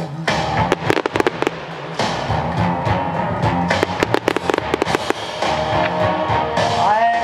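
Fireworks bursting in rapid volleys of sharp bangs and crackles, with clusters of reports about a second in and again four to five seconds in, over music.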